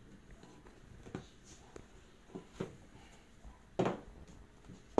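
A cardboard box with a lift-off lid being opened by hand: a few short rustles, scrapes and knocks as the lid comes off and is put down on a wooden table, the loudest about four seconds in.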